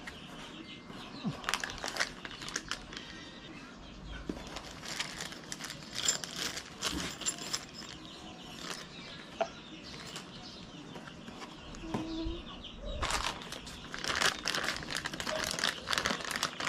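Cardboard packaging and a clear plastic bag of small parts being handled: crackly crinkling and rustling in quick irregular strokes, busiest near the end.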